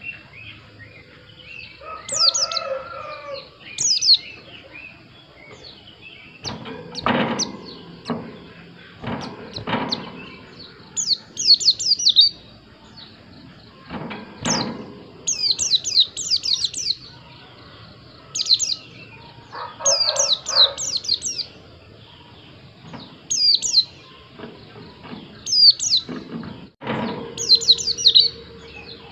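A pleci (white-eye) singing: quick clusters of high, falling chirps, repeated every second or two. A few dull knocks and some lower calls come in between.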